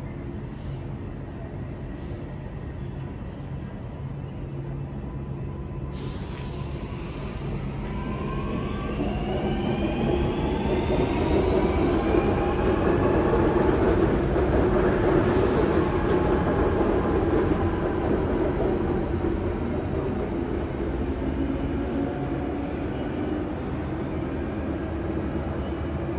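Sydney Trains Tangara double-deck electric train running into the station: a rumble of wheels and traction motors with whining tones that rise and then fall, building to its loudest about halfway and easing off towards the end.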